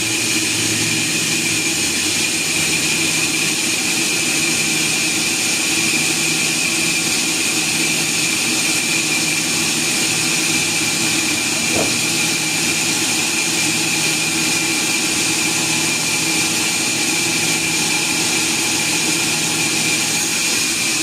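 Log sawmill machinery running steadily, with a constant high whine over a lower hum.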